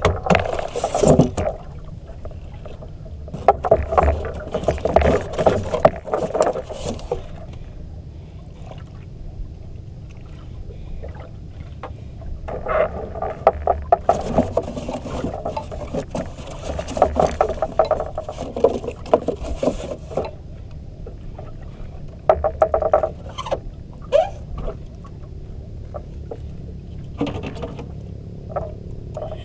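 Handling noises aboard a small banka: groups of irregular knocking and scraping over a steady low rumble.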